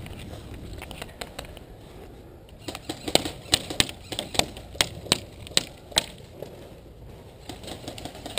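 Airsoft guns firing, a string of sharp irregular cracks, several a second, starting about three seconds in and dying away after about six seconds.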